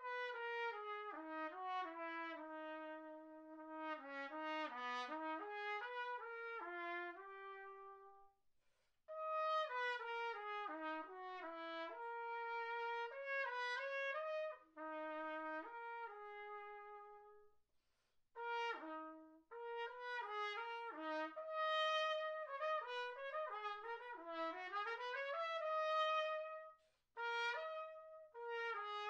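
Solo unaccompanied trumpet playing a melodic passage in phrases, breaking off briefly between phrases about 8, 18 and 27 seconds in.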